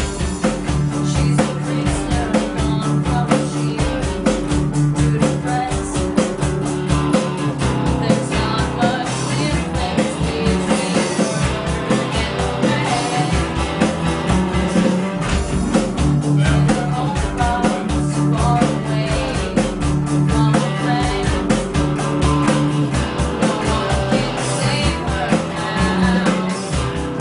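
A rock band playing an indie-punk song together live in a small room: two electric guitars, an electric bass and a drum kit, with a steady driving drum beat and a repeating bass line.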